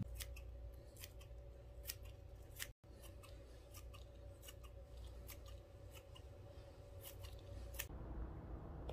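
Scissors snipping through a tray of cat grass (barley sprouts), a crisp cut about every half second. The snipping stops shortly before the end.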